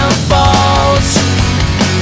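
Melodic punk rock played by a full band, with no singing in this stretch: electric guitars carry a held, bending melody over bass and drums.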